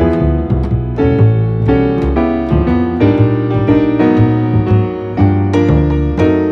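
Background piano music, a run of struck notes over low bass notes.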